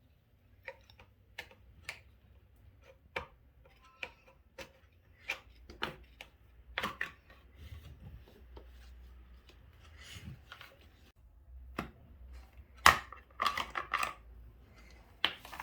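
Screwdriver working a screw out of an electric iron's plastic housing: a run of small clicks, about one or two a second, with a louder cluster of clicks and knocks near the end.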